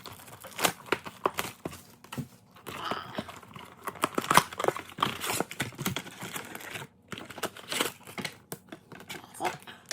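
Crinkling, tearing and clicking of the plastic wrap and cardboard of a trading-card box as it is unwrapped and opened, in irregular crackles and snaps.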